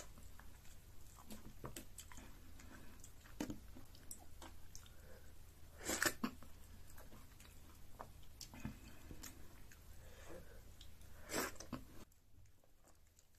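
Close-up sound of a person eating pounded yam fufu with banga soup by hand: chewing with many small wet mouth clicks, and two louder bursts about 6 and 11 seconds in. It gets quieter in the last second or so.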